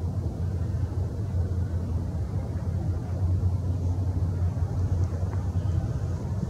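Steady low rumble of outdoor background noise, with a faint tick about five seconds in.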